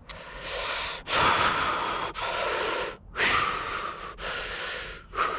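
A person breathing hard and heavily, about one noisy breath every second, out of breath from the exertion of fighting a large trout on the line.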